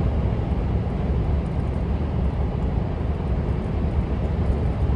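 Scania R500 V8 truck engine running steadily, a continuous low rumble.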